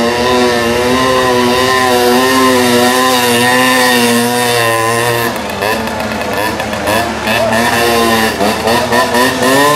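Famel Zundapp moped's small two-stroke single-cylinder engine held at high revs, its pitch wavering, for about five seconds. Then the throttle is blipped again and again, the revs rising and falling, with a sharp climb near the end.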